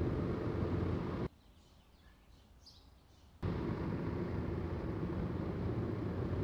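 Steady low road and engine rumble inside a moving car. About a second in it cuts off sharply to a quiet stretch with a few faint bird chirps, and the car rumble returns about two seconds later.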